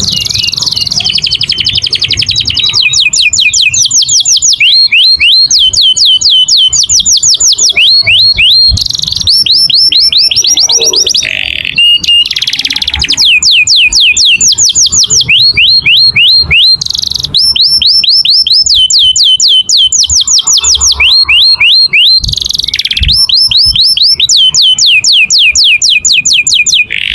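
Domestic canary singing a long, unbroken song of fast trills: quick runs of repeated sweeping notes that switch to a new pattern every second or two, with only a few brief pauses.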